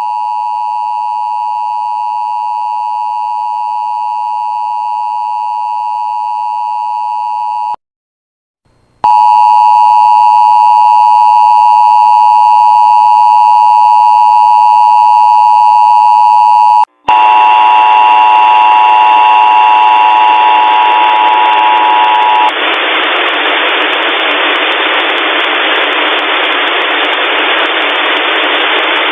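Mock Emergency Alert System two-tone attention signal sounding steadily for about eight seconds, breaking off briefly, then sounding again louder for about eight more. After a short dropout it returns with harsh static mixed in. About five seconds later the tone stops, leaving only loud, steady static in place of the spoken alert message.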